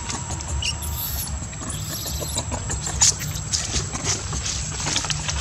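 Newborn baby monkey giving a few thin, high squeaks, followed by a run of short clicks and scuffs, the loudest about three seconds in, over a steady high tone.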